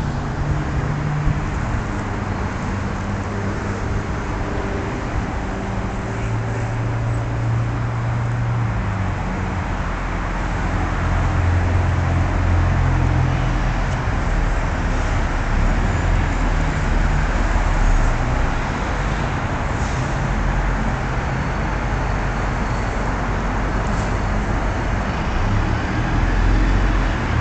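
Steady low rumble of road traffic, with a low hum that shifts in pitch now and then.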